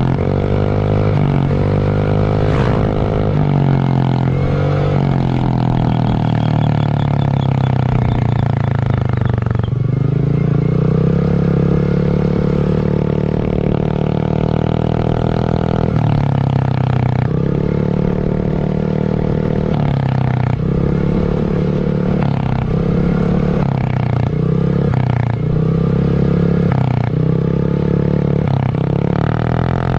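Honda Beat scooter's single-cylinder engine running through a cheap WRC 'mber' bucket-style aftermarket muffler: a deep exhaust drone while idling, with the revs rising and falling several times.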